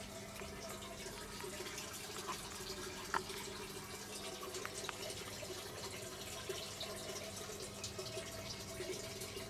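Water trickling and dripping through a hydroponic system's PVC growing pipes over a steady low hum, with a few faint clicks.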